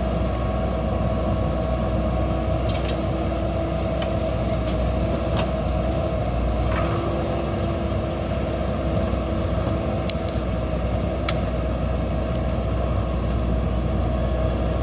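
JCB backhoe loader's diesel engine running steadily under load, with a steady whine over the rumble. A few sharp knocks come through, about three seconds in, again near six and seven seconds, and twice more past ten seconds.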